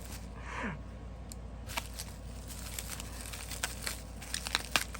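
Plastic packaging bags crinkling and rustling as they are handled and opened, with many small scattered clicks.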